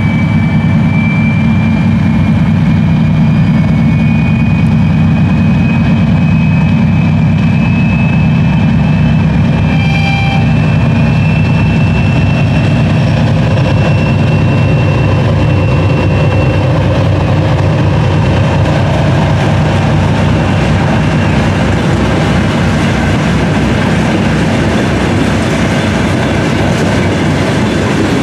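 2TE10M twin-section diesel locomotive running under load as it hauls a train of tank cars past, its 10D100 two-stroke opposed-piston diesels making a loud, steady drone. High thin wheel squeal sounds through the first half, and the train wheels clack over the rail joints.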